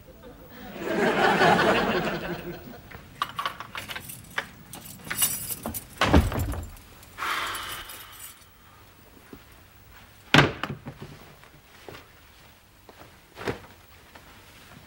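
A house front door being opened and shut, with keys jangling, a heavy thud of the door and a sharp knock later on. A brief burst of studio-audience noise comes near the start.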